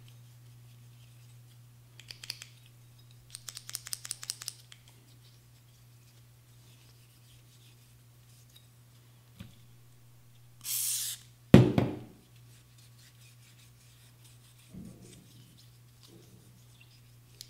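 Quick metal clicks and rattles from an AR-15 charging handle being worked in the hands as CLP lubricant is worked into its spring-loaded latch, over a steady low hum. Partway through there is a short hiss, then a single loud knock.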